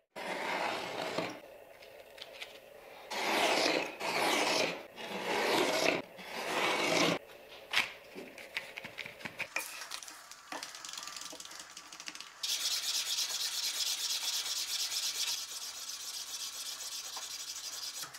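Burlap micarta knife handle being shaped by hand with an abrasive, with about five long rubbing strokes in the first seven seconds. Lighter scrapes and ticks follow, then from about twelve seconds a steady fine rasping hiss.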